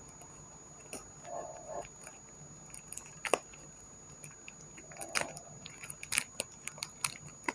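Scattered light clicks, taps and rustles of flat-pack furniture parts and cardboard packaging being handled during unpacking, with a sharper click about three seconds in and a run of small clicks near the end.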